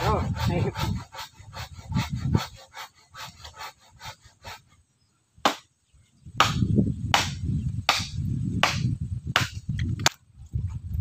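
Hand work on wood: quick rhythmic scraping strokes, then, after a brief pause, regular sharp knocks a little more than once a second over a low rumble.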